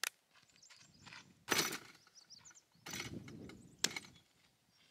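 Footsteps on dirt and a heavy ballistics gel block set down on a plastic folding table: a few separate knocks and scuffs, the sharpest one just before four seconds in.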